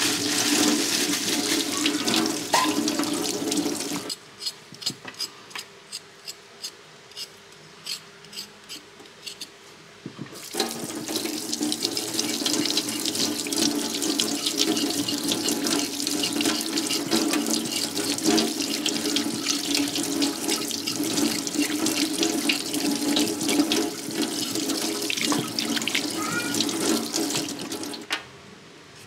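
Kitchen tap running, its stream splashing over root ginger held under it and into a stainless steel sink. About four seconds in the water stops for some six seconds, leaving only short scraping clicks of a knife on the root, then it runs again and stops near the end.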